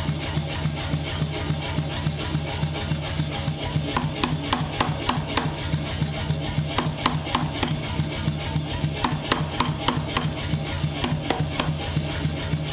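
Power hammer running, its ram striking hot steel on the die in a rapid, even run of blows several times a second over a steady motor hum. The blows are sharpest in the middle stretch.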